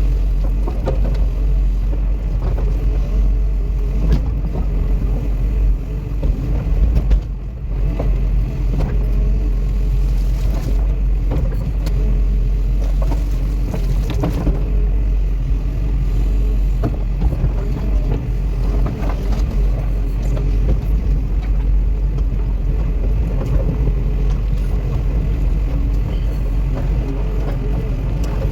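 Cat 316E excavator's diesel engine running steadily under work, with scattered knocks and clanks.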